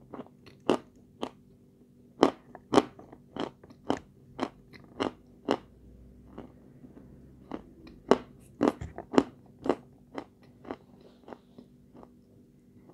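Close-up chewing and crunching of a white sweet: sharp crunches about twice a second, pausing briefly around the middle and thinning out near the end.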